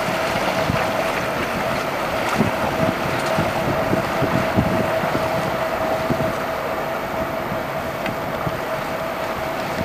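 Motor lifeboat's engines running steadily as it heads toward the microphone, with a steady whine, and wind buffeting the microphone in irregular low thumps.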